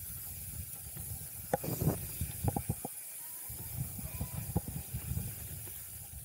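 Mountain bike rolling fast down a dirt singletrack: tyres on dirt with a steady hiss and low rumble, and a cluster of sharp rattles and knocks from the bike about one and a half to three seconds in, with a few more near the end.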